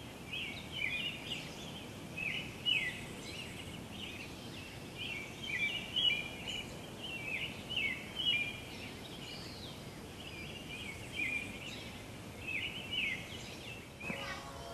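Early dawn chorus: many birds singing over one another in short chirping, sliding phrases, over a steady background hiss.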